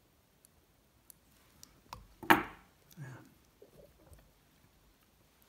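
Fly-tying tools being handled at the vise: a few faint clicks and one sharp knock a little over two seconds in.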